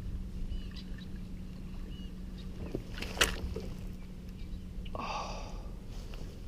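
Small fishing boat moving on the water, with a steady low hum. There is a sharp knock about three seconds in and a short high-pitched sound about five seconds in.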